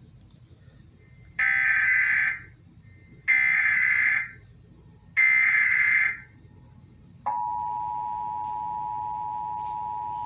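Emergency Alert System SAME header: three loud, identical data squawks about a second long each, encoding a Required Monthly Test. About a second after the third, the steady two-tone EAS attention signal (853 and 960 Hz) starts and holds.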